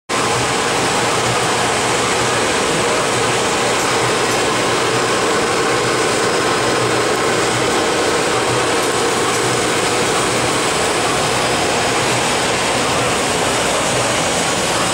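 Steady, unbroken noise of running machinery: a miniature blown film extrusion line at work among other running plastics-processing equipment.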